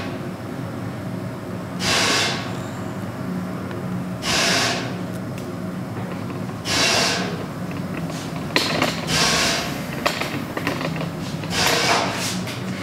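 A steady machine hum with a short burst of hiss about every two and a half seconds, and a few sharp clicks in the second half.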